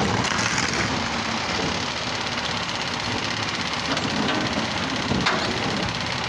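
Automated side-loader garbage truck's diesel engine running steadily while its hydraulic arm lifts a wheeled trash cart up over the hopper, with a sharp knock about five seconds in.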